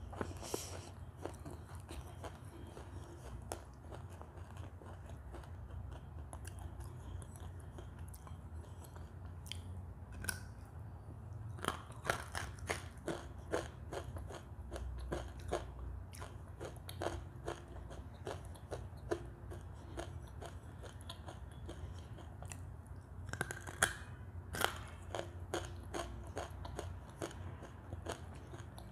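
Close-up mouth sounds of biting and chewing pieces of white Turkestan clay paste. Crisp crunches and crackles run throughout, coming thickest and loudest about twelve seconds in and again near twenty-four seconds.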